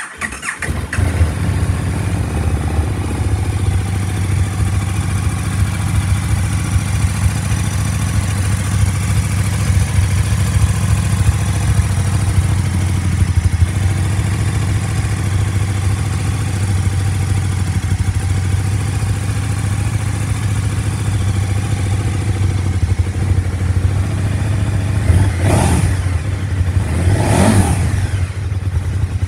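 KTM 1290 Super Duke GT's V-twin engine starting up and then idling steadily, with two quick throttle blips near the end that rise and fall in pitch.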